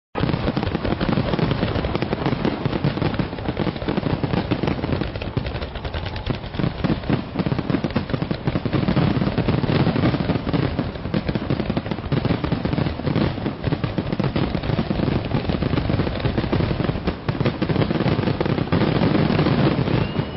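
Aerial fireworks exploding in a dense, unbroken barrage of bangs and crackles, one burst on top of the next.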